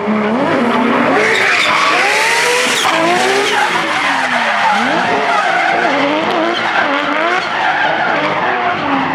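Nissan Silvia S15 drift car's 1000 PS RB26 straight-six revving up and down again and again as the throttle is worked through a drift, its pitch dropping sharply about halfway and climbing back, over the loud hiss of the rear tyres skidding.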